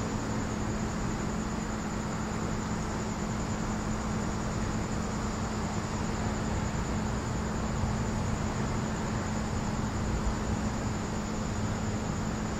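Steady night ambience: a continuous, finely pulsing high trill of crickets over a constant low hum and hiss.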